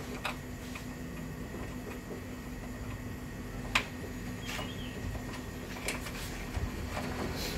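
A few light, scattered clicks and taps of handling in a car's engine bay, the sharpest about four seconds in, over a steady low hum.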